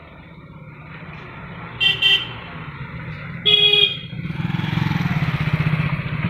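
Motorcycle horn beeping twice briefly, then once more a little longer about a second and a half later, followed by a motorcycle engine running close by, growing louder with a steady pulse.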